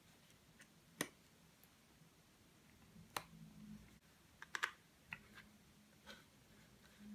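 Faint handling noise of hard plastic parts: a handful of light clicks and taps, one about a second in and a quick cluster a little past the middle, as the small plastic FPV monitor, its sunshade and its antenna are handled.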